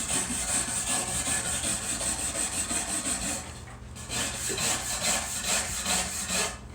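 Wire brush scrubbed rapidly back and forth across a wooden board, about five strokes a second, to take off any finish left on the wood. The scrubbing pauses briefly a little past halfway, then resumes and stops near the end.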